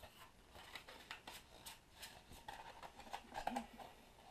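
Faint rustling and light clicks of thin plastic voice-coil shims being handled and rolled up by hand.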